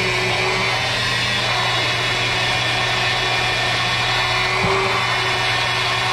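Blender running at a steady speed, pureeing roasted chiles and tomatillos with cilantro into salsa verde.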